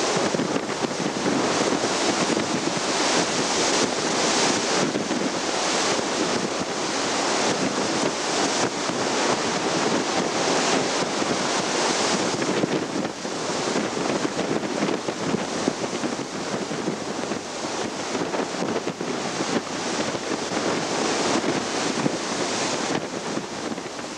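Water washing across a flooded ship's deck, with wind blowing on the microphone: a steady, loud rush with no pauses.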